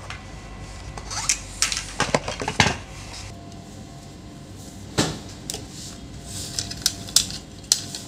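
Scattered clicks, taps and light scrapes of small plastic and metal parts being handled as a laptop cooling fan and its cables are pressed into place on a motherboard.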